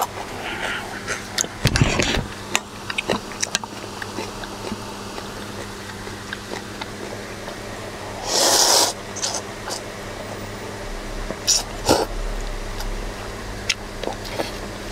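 Eating cold noodles at close range: scattered clicks and taps of utensils on a bowl, with chewing, and one longer rushing sound about eight seconds in.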